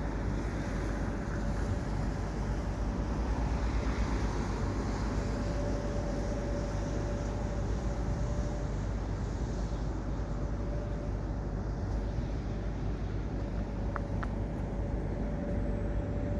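Canadian Pacific double-stack freight train creeping slowly: a steady low rumble with a steady whine over it.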